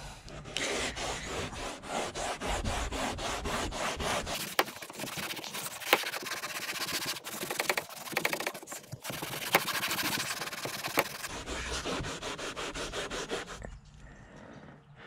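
An old sock damp with degreaser scrubbed quickly back and forth over a car's fabric roof lining: fast, rhythmic cloth-on-fabric rubbing with a short break about nine seconds in, stopping shortly before the end.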